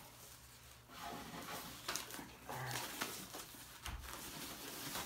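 Plastic wrapping rustling and crinkling as it is handled and pulled off a helmet, with a low thump about four seconds in.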